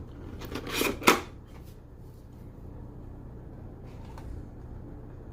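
Hands handling the contents of a collector's tin: a brief rustle and a sharp knock about a second in, then only a faint steady hum with a few light ticks.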